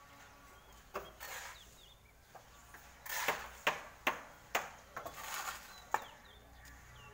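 Long-handled shovel scraping over concrete and through mortar in several short scrapes, mixed with a run of sharp knocks and clicks, about one every half second in the middle of the stretch.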